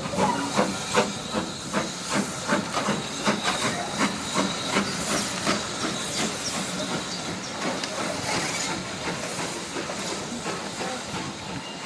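Steam locomotive hissing steam, with a rhythmic exhaust beat of about two to three chuffs a second that evens out and eases off in the second half.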